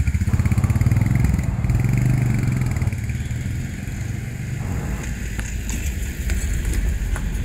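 Motorcycle engine pulling away with a fast, pulsing low exhaust beat that fades over the first three seconds. After that comes a lower, steady rumble of street traffic as a small goods truck drives past.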